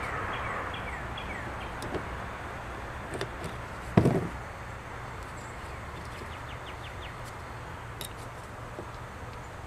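Hand work on a Martini-Henry Mk II rifle's trigger assembly: a few light clicks of metal parts being handled, and one sharp, louder knock about four seconds in as a screwdriver is set down on the wooden bench.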